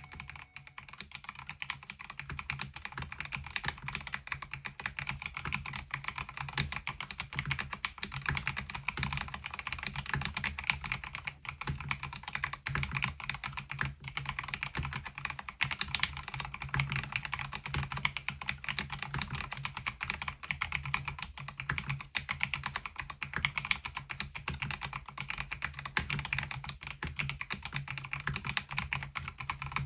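Continuous typing on a MelGeek Mojo68 mechanical keyboard fitted with KiiBOOM Digital Dreams MOA-profile keycaps: a dense, unbroken run of keystroke clacks.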